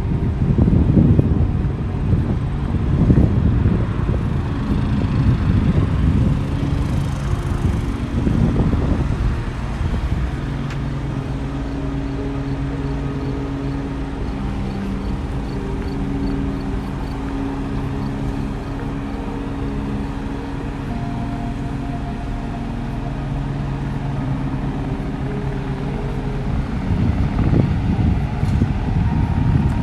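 Helicopter engine running steadily, a constant hum that holds even in the middle stretch. Gusty low rumble of wind on the microphone covers it for the first ten seconds or so and again near the end.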